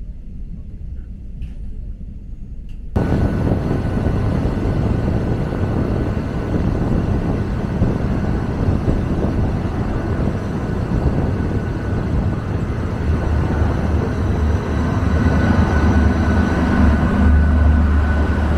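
Loud, steady running noise of a moving vehicle, a rumble with hiss across the range. It starts abruptly about three seconds in, after a quieter low rumble, and a deep hum grows stronger in the last few seconds.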